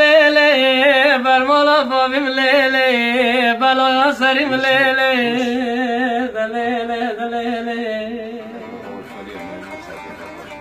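A man singing a Kurdish ağıt (lament) in long, wavering, ornamented notes over a bağlama (long-necked saz) being played. The voice fades out about eight seconds in, and the bağlama carries on more quietly.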